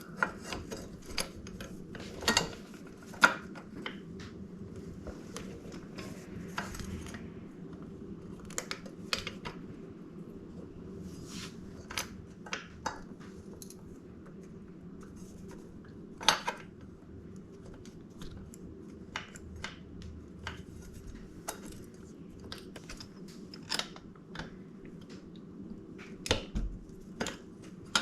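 Scattered clinks and taps of small metal parts and hand tools being handled while fitting a motorcycle's rear wheel, at irregular spacing over a steady low hum.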